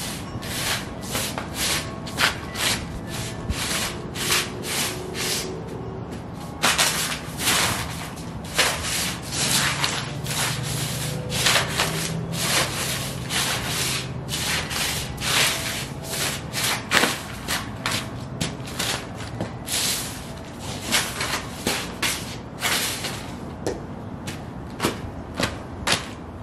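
Sheepskin Ugg boots stomping on loose magazine pages over concrete: repeated crunching and crinkling of glossy paper, about two to three steps a second.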